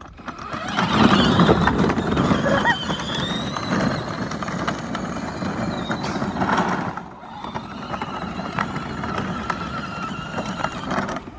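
A child's side-by-side UTV driving, its motor running with a faint high whine that rises and falls over the tyre noise. It eases off briefly about seven seconds in, then picks up again.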